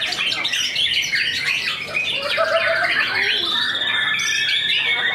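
White-rumped shamas singing in a songbird contest: a dense, overlapping run of quick chirps, squawks and whistles from several caged birds. From about three seconds in, long steady high notes are held under the chatter.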